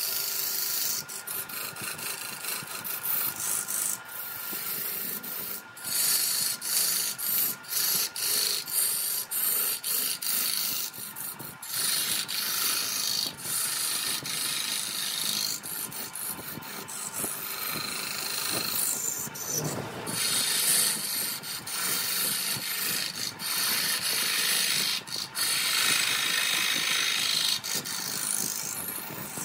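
Turning tool cutting into a large wooden blank spinning on a wood lathe: a continuous hiss of shavings coming off, broken by many sharp clicks and knocks as the tool bites, rising and falling in loudness as the cut changes.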